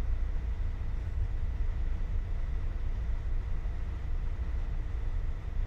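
Steady low rumble of shipboard machinery, with a faint steady high whine above it.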